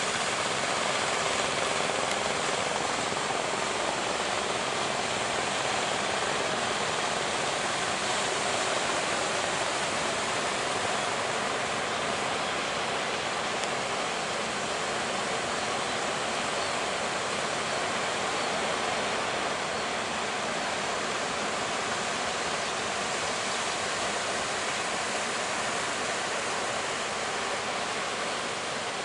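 Steady roar of surf breaking at a river mouth, a constant rushing noise without separate crashes.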